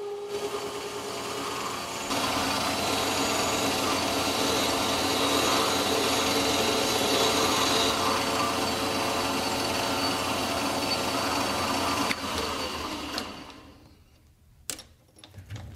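Metal lathe running and turning a flange-nut blank, the tool cutting chips from the spinning work. About 12 seconds in the lathe stops and the sound fades away, followed by a few sharp clicks near the end.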